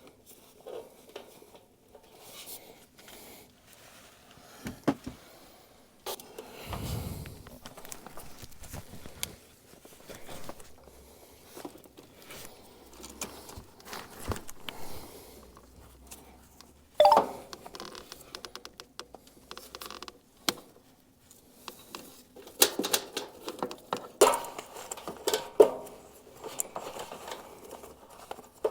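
Intermittent clicks, knocks and rattling handling noise in a small room, with a low thud about seven seconds in and denser clusters of clatter later on.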